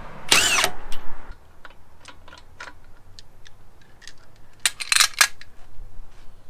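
Cordless power tool with a socket spinning lug nuts off a car wheel. Its motor spins up and winds down for about a second near the start, followed by scattered light metallic clicks and a short cluster of sharper clacks about five seconds in.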